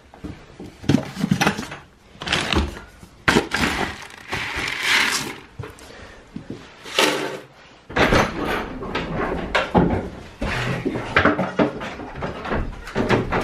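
Irregular knocks, thunks and clatter from a feed scoop, a bucket and grain pellets being handled, then a goat stepping up onto a wooden milking stand.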